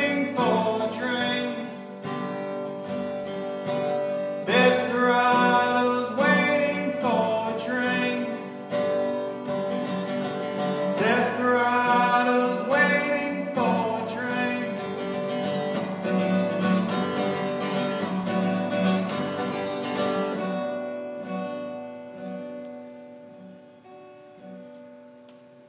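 Steel-string acoustic guitar playing an instrumental outro: strummed chords over picked bass notes. The last chord is left to ring and fades away over the final few seconds.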